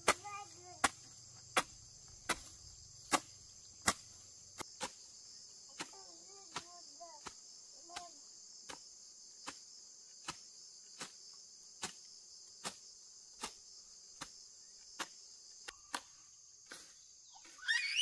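Regular chopping strikes, about one every three-quarters of a second, from a hand tool clearing grass, over a steady high-pitched insect chorus.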